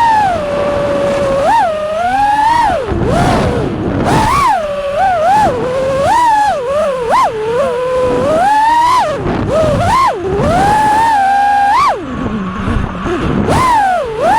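FPV freestyle quadcopter's brushless motors whining, the pitch swooping up and down constantly with rapid throttle changes. Where the pitch drops there are brief rushes of air noise.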